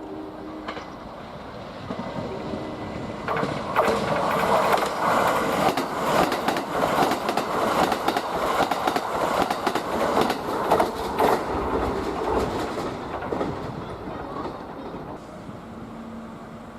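Kintetsu limited express electric train running through the station, its wheels clattering rapidly over the rails. The sound builds within the first few seconds, stays loud for about eight seconds, then fades away.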